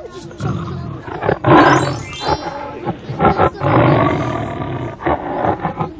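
African lion roaring: a series of loud, deep roars, loudest about one and a half seconds in and again around four seconds in.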